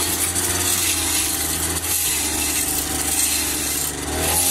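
Petrol brush cutter running steadily at speed, its blade chopping dried grass into small pieces for chaff.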